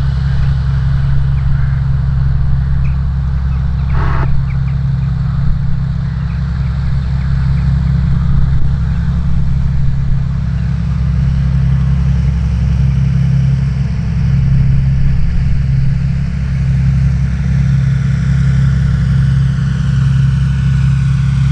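Cessna 414A Chancellor's twin turbocharged piston engines (Continental TSIO-520s) running at low taxi power, a steady low propeller drone. A higher whine climbs in pitch over the last few seconds as the aircraft comes up close.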